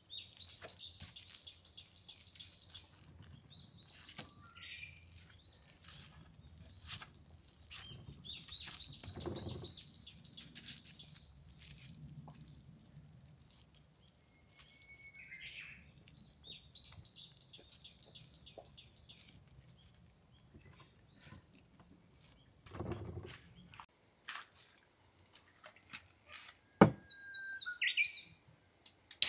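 Birds chirping in short runs over a steady high insect drone, with soft handling rustles of plastic wrap on a wooden board. A sharp knock comes near the end.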